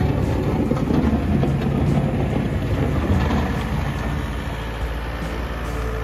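John Deere 204L compact wheel loader running and working through slushy snow, its diesel engine giving a loud, rough low rumble under load.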